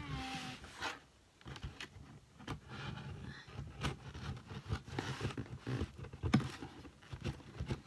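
Scissors cutting and scraping along the packing tape on a cardboard box, with irregular snips, scratches and knocks against the cardboard.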